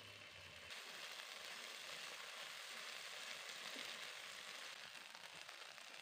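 Sliced sausages frying in oil in a non-stick pan, a steady sizzle that comes in under a second in, as background music drops out.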